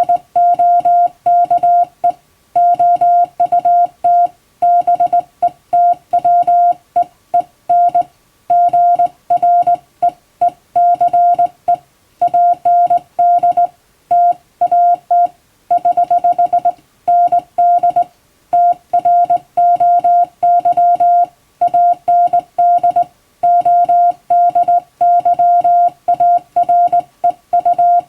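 Hand-keyed Morse code: a single steady tone switching on and off in dots and dashes with word gaps, sending English-language telegram text as sending practice.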